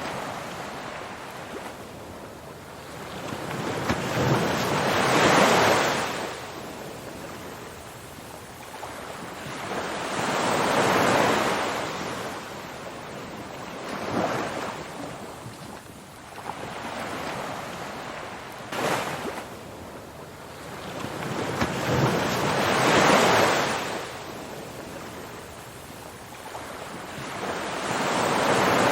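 Ocean surf: waves swelling into a rushing hiss and falling away again, one after another about every five to six seconds.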